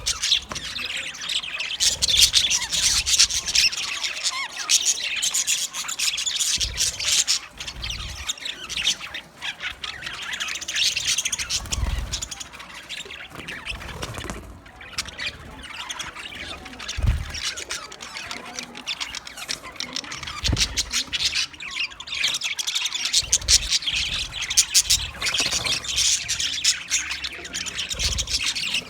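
Green budgerigars chattering: a continuous, rapid warble of chirps and squawks, with a few short low thumps.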